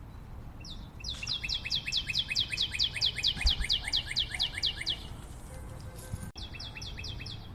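A bird singing a rapid trill of short falling chirps, about seven a second, for some four seconds, then a shorter run of the same near the end.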